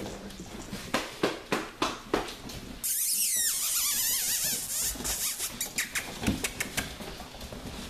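Puppies' claws clicking and skittering on a tiled floor in quick irregular taps as they scramble about. A steady high hiss comes in suddenly about three seconds in.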